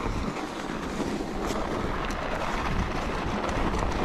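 Bicycle on Schwalbe Ice Spiker Pro studded tyres rolling over packed snow: a steady rolling noise from the tyres and bike that grows slightly louder.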